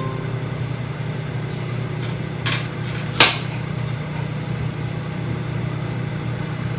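Microwave oven humming steadily as it heats. Two sharp knocks of a knife cutting an apple come about two and a half and three seconds in; the second is the louder.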